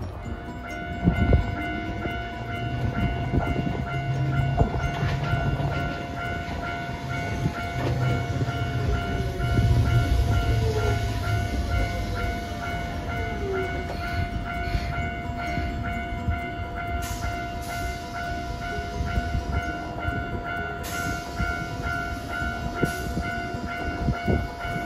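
Hiroden 3800-series Green Liner articulated tram pulling into the stop: low rumble of wheels and motors, with a falling electric whine as it slows. A few steady high tones sound throughout.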